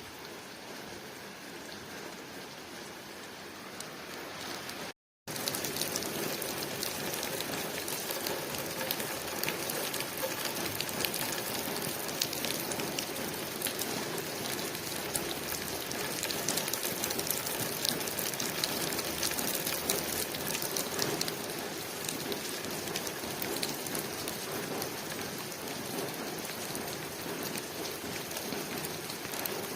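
Steady rain falling on a window pane: an even hiss with fine patter of drops. It cuts out for an instant about five seconds in, then comes back louder with denser patter.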